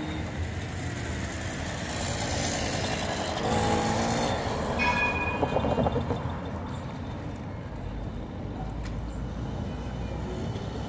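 Busy city crossing with street traffic, and a tram's steel wheels rumbling on the rails as it approaches. Pitched lines run for a few seconds in the middle, and a low rumble builds near the end.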